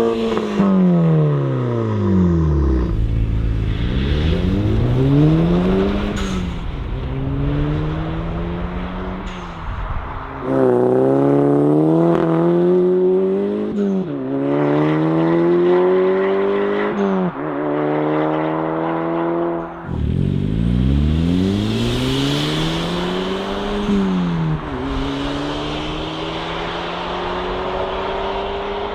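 Volkswagen MK5 GTI's turbocharged four-cylinder engine and exhaust revving up and falling back several times, then accelerating with the pitch climbing and dropping sharply twice at upshifts, and more revs and a long rising pull near the end.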